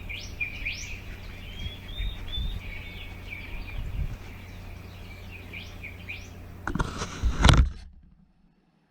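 Small birds chirping in short repeated calls over a steady low rumble, then a few loud knocks or handling bumps about seven seconds in, after which the sound cuts out.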